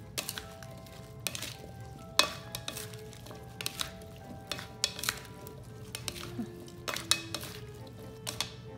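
Plastic salad servers tossing a dressed salad in a bowl: irregular clicks and knocks of the servers against the bowl, with the soft rustle of the lettuce and vegetables.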